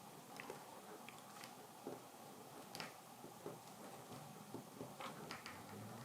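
Faint, irregular little clicks and scratches of a Mora 106 carving knife's tip cutting kolrosing lines into a wild cherry teaspoon handle.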